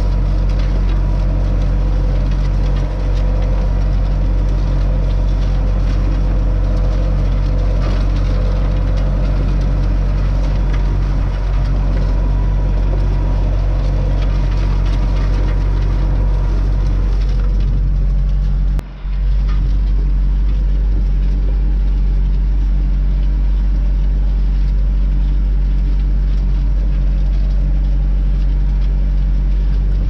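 Massey Ferguson 390 tractor's diesel engine running steadily under load while pulling disc harrows, with the scraping rattle of the steel discs cutting through ploughed soil. A little past halfway the sound drops out for a moment and returns duller.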